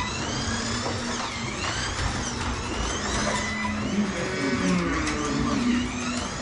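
A 1/24 scale Ford GT40 slot car on silicone tires lapping the track, its small electric motor whining up and down again and again as it speeds along the straights and slows for the corners. Short electronic beeps sound near the start and around the middle.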